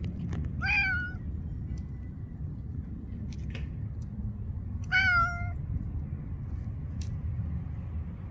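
Grey-and-white tabby cat meowing twice, about four seconds apart. Each meow is short, about half a second, and dips slightly in pitch before holding steady, over a steady low background rumble.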